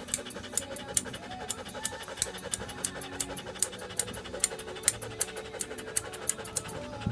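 Grooming scissors snipping through a standard poodle's curly coat in a steady run of sharp snips, about two or three a second.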